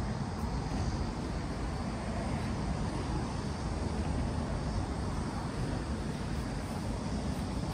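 Steady road-traffic noise from a nearby road: a continuous low rumble with a light hiss above, no single vehicle standing out.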